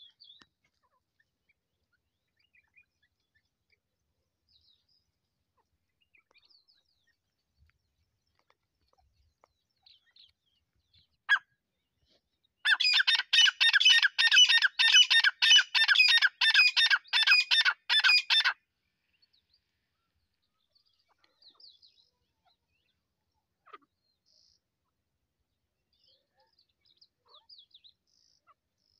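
Grey francolin (teetar) calling: a loud, fast run of about twenty repeated high notes, roughly three a second, lasting about six seconds, with a single sharp call a little over a second before it. Faint chirps come before and after.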